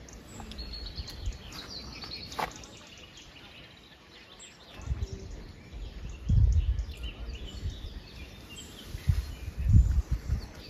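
Small birds chirping and calling, with irregular low rumbling on the microphone that grows louder in the second half.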